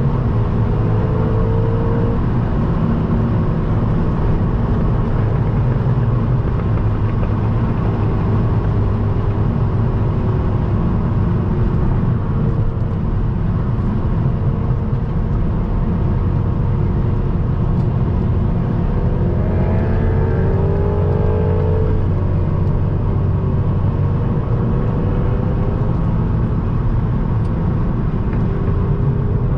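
Turbocharged 2.0-litre four-cylinder of a modified MKVII VW GTI with a catless downpipe and cat-back exhaust, running under steady driving with a constant rumble of road and wind noise. The engine note drifts up and down with the revs and climbs briefly about twenty seconds in as the car speeds up.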